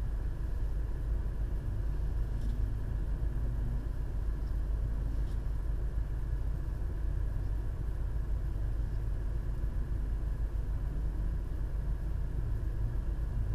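Vehicle engine idling steadily, heard from inside the cabin as a low, even rumble.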